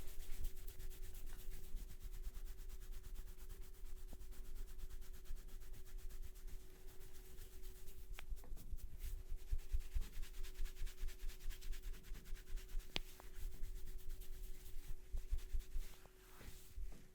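Hands rubbing and scrubbing over hair and scalp in a head massage: a fast, crackling rubbing sound that swells and fades unevenly, over a steady low hum. A few sharp clicks come around the middle.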